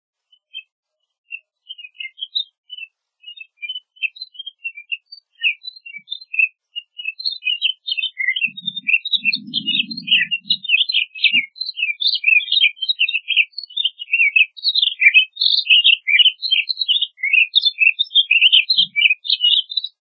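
Pine grosbeak singing: a rapid warbling run of short high notes, scattered at first, then crowding into a continuous jumble for the rest of the song. A faint low rumble comes in briefly near the middle.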